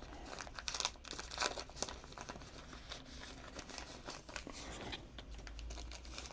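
Clear plastic packaging crinkling and rustling as it is handled, in irregular crackles that are loudest between about one and two seconds in.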